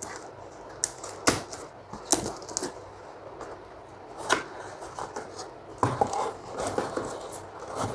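Handling of cardboard and plastic packaging as a wrapped iPad box is lifted out of its shipping carton: scattered rustles and scrapes with a handful of sharp taps and clicks.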